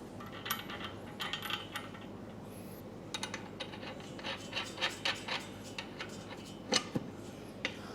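Faint, irregular metal clicks and scraping as bolts, washers and nuts are fitted and hand-threaded on a steel rack base, with a sharper click about seven seconds in.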